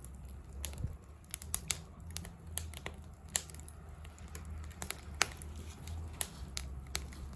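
Wood fire crackling, with sharp irregular pops over a low steady rumble.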